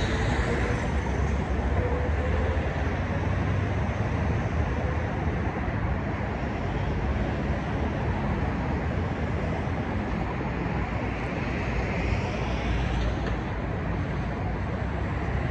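Steady city road traffic: a continuous low rumble of passing vehicles, swelling a little about twelve seconds in.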